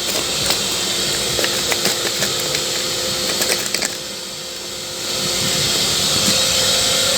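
Makita VC3011L construction vacuum running, with debris clattering and ticking through the hose for the first four seconds. About four seconds in the sound drops briefly, then comes back louder and hissier as a chunk gets stuck in the hose.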